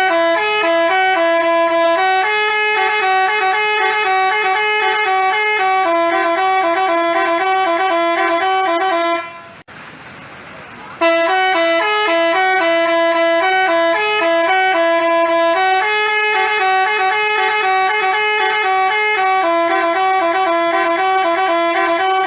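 Telolet basuri bus horn playing a melody of stepped, clear notes. The tune breaks off about nine seconds in for a short noisy pause, then plays again.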